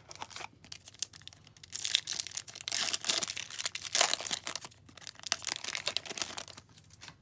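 Foil wrapper of an O-Pee-Chee Platinum hockey card pack being torn open and crinkled by hand: a dense crackling that starts about two seconds in and dies away shortly before the end.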